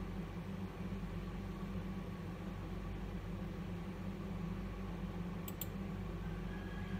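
Steady low hum and hiss of room noise, with two quick faint clicks about five and a half seconds in.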